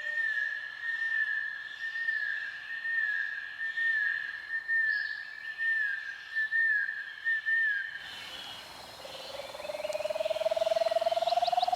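Two long whistled calls. First a steady high whistled note with a small upward flick about once a second, which stops about eight seconds in. Then a lower, trilled whistle rises steadily in pitch over about four seconds.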